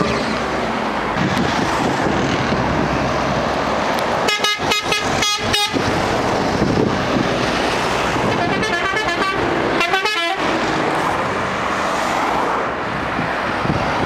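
Convoy of buses, minibuses and cars driving past on a highway, with steady traffic noise. A run of about six short horn toots sounds about four seconds in, and another burst of honking around nine to ten seconds in.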